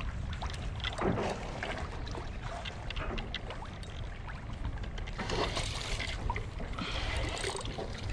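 A hooked snook splashing at the water's surface in bursts as it is reeled in, about a second in and twice more in the second half, over a steady rumble of wind on the microphone.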